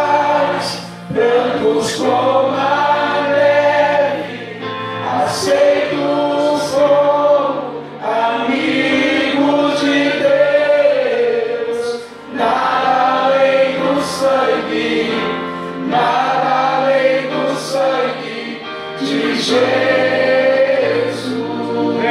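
Live worship band singing a slow hymn in phrases, male and female voices together over acoustic guitar and sustained keyboard notes.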